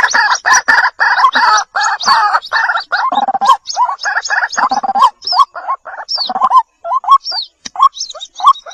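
White-breasted waterhen chicks calling: a rapid stream of short, repeated calls, dense and overlapping for the first five seconds or so, then thinning to separate short rising notes.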